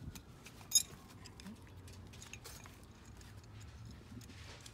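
Small metal parts clicking and rattling as a screw is turned in by hand to fix the intake to its mounting bracket, with one sharp click about a second in.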